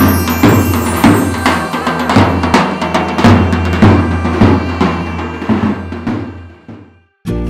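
Intro music with a steady drum beat, fading out near the end; after a brief gap a new piece of music starts just before the end.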